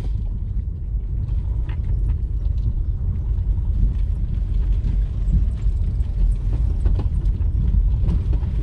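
Steady low rumble of a vehicle moving along a road, with engine and road noise and a few faint knocks.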